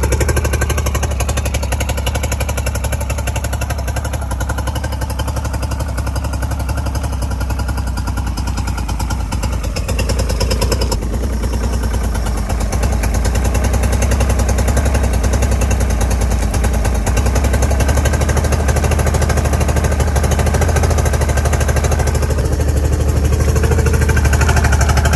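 Mercury 90 hp outboard motor running steadily with a fast, even firing pulse, run out of the water on a garden-hose flush. Its water pump is pushing cooling water again now that dirt has been cleared out of the telltale.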